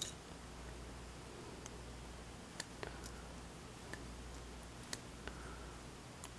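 A few faint, scattered metal clicks and taps of a small tool probing the pin chambers of a disassembled euro cylinder lock, over a low steady hum.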